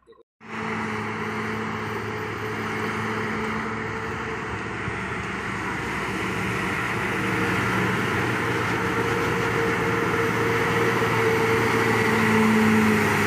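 Heavy trucks' diesel engines labouring slowly up a ghat climb: a steady engine drone that starts abruptly about half a second in and grows louder as a multi-axle tanker truck comes close near the end.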